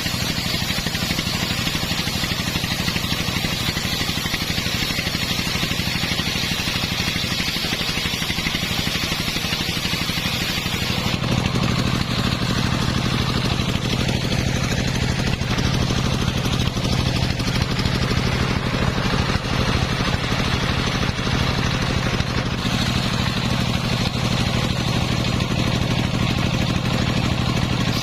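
Engine-driven, home-built circular sawmill running steadily while sawing coconut-palm wood, with a steady engine hum under the high hiss of the blade. About eleven seconds in the hiss drops away and the engine hum grows stronger, and the hiss returns about three-quarters of the way through.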